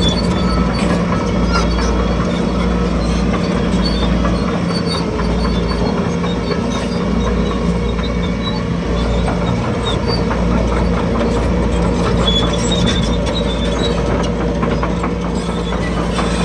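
Crawler bulldozer working, its diesel engine running steadily under the clanking and squealing of its steel tracks.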